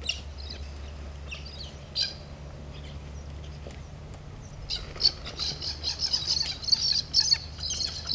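Birds chirping and squawking, with a few separate calls in the first two seconds and dense, busy chattering from about five seconds in. A steady low hum runs underneath.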